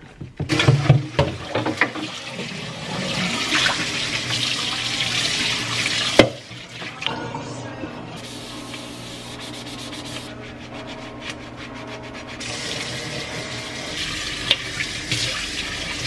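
Kitchen tap running into the sink while a white ceramic mixing bowl is rinsed and handled, with clinks and a sharp knock of the bowl about six seconds in.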